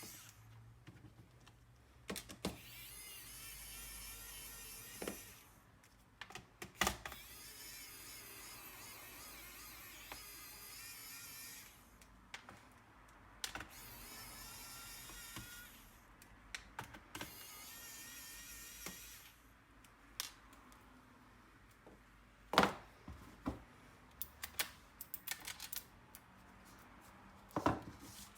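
Small electric screwdriver whirring in several short runs of a few seconds each, taking the screws out of a laptop's plastic case, with clicks and knocks of screws and case parts being handled in between.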